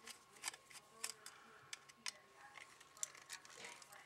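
Faint scattered clicks and light scrapes of a screwdriver working at the small screws in the metal housing of a PolyPhaser coaxial lightning arrestor as it is being taken apart.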